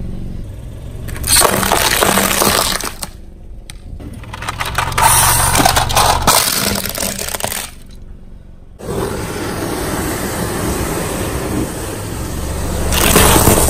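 Car tyre rolling over and crushing plastic food containers, with sharp cracking and crunching in several separate bursts. After a cut, a stretch of steady noise, with another loud burst near the end.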